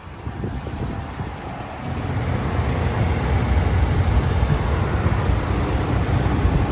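A 5.7-litre HEMI V8 in a 2017 Ram 1500 idling steadily. The engine grows louder about two seconds in.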